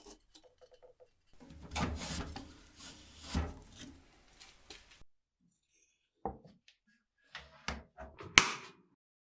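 Rubbing and clattering of parts and tools being handled, then a few separate sharp knocks, the loudest about eight seconds in.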